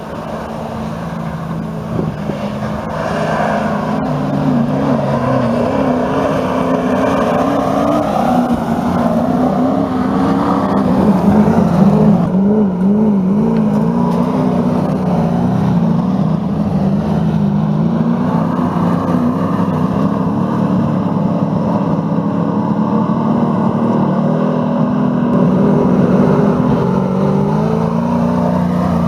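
Engines of old Soviet-built race trucks revving hard on a dirt track, their pitch rising and falling as they accelerate and back off. The sound gets louder over the first few seconds as the trucks come closer, then stays loud.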